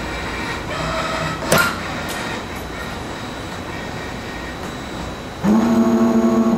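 MTF-40SR forming spring machine running with a steady mechanical clatter. There is a sharp clack about a second and a half in. A loud, steady pitched hum starts suddenly near the end.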